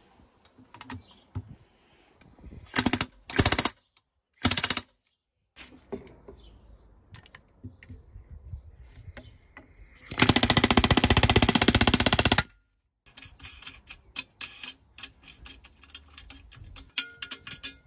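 Pneumatic air hammer setting rivets in the steel base plate of a vintage fire bell, backed by a steel block: three short bursts of rapid hammering, then a longer, loud burst of about two seconds midway. Light clicks and knocks of the metal parts being handled follow near the end.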